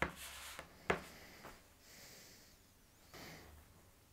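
Faint handling noises: a click with a short rustle at the start, a sharper tap about a second in, and a soft rustle near the end.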